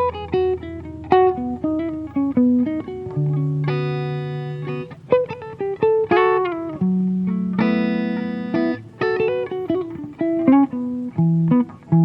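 Solo acoustic guitar, improvised: plucked single notes and short runs, with a chord let ring for a second or so about four seconds in and again about eight seconds in.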